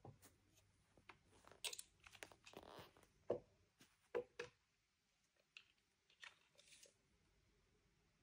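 Faint, scattered knocks, clicks and a short scrape of wooden blocks and boards being handled and set against a lumber frame.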